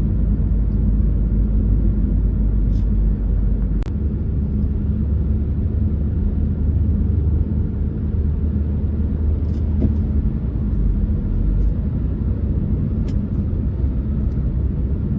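A car driving along: steady low engine and road rumble, with a sharp click about four seconds in.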